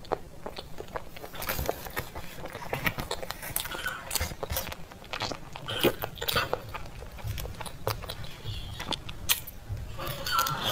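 Close-up eating sounds: a metal spoon clicking and scraping in a plastic tub of soft creamy dessert, with wet mouth and chewing sounds as it is eaten.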